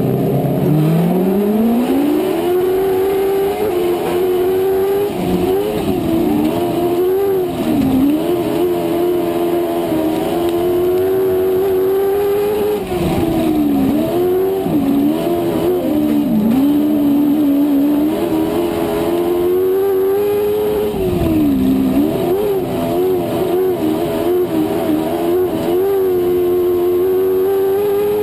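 Onboard sound of a dwarf race car's motorcycle engine at racing speed: the engine note climbs sharply as the car accelerates away in the first two seconds, then stays high with repeated dips and recoveries every few seconds as the throttle is lifted for the turns of the oval and opened again.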